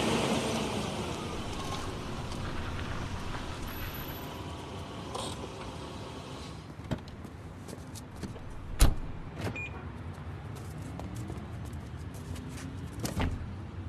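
A car's noise fades away over the first few seconds. Then come scattered metallic clicks and knocks of someone working at a car door, the sharpest knock about nine seconds in.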